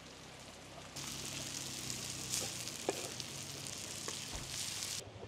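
Diced squash sizzling in oil in a wide pan, a steady frying hiss that starts suddenly about a second in and stops suddenly near the end, with one light knock in the middle.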